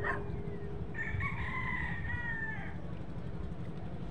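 A rooster crowing once, a drawn-out call lasting nearly two seconds that falls slightly at the end, over a steady low rumble.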